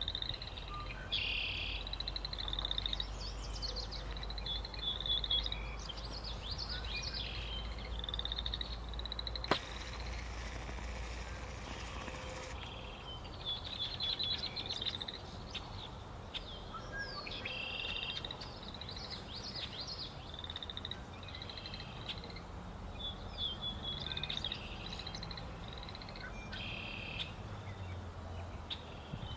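Several birds singing and calling, short repeated phrases coming again and again, over a low steady rumble. A single sharp click about nine seconds in, followed by a couple of seconds of hiss.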